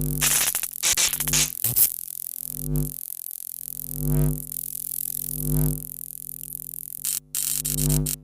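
Electric sparking sound effect: a steady electrical buzz that swells about every second and a half, with loud crackling sparks through the first two seconds and again near the end.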